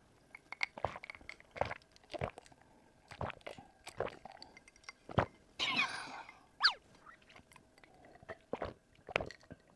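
A person chewing food close to the microphone, with scattered wet mouth clicks and smacks, a louder rustling burst about six seconds in and a short falling squeak just after.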